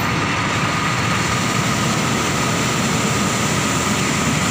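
Fire truck's engine running steadily with its water pump engaged, a loud even drone with a constant high whine over it.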